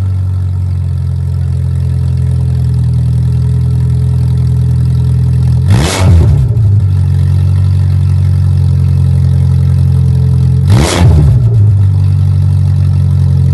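Mini Cooper's 1.6-litre four-cylinder engine idling on a cold start with no catalytic converter, running straight out of a new sports exhaust manifold, very loud. Two tiny throttle blips come about six and eleven seconds in.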